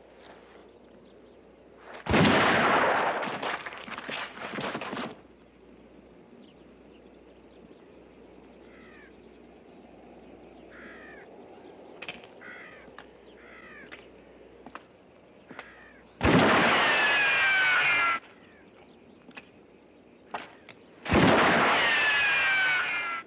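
Three revolver gunshots, about 2 s, 16 s and 21 s in, each with a long echoing tail; the last two carry a falling whine like a ricochet. Faint short chirps and ticks in between.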